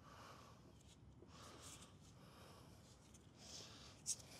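Near silence with faint scraping and rustling handling noises and one short sharp click about four seconds in.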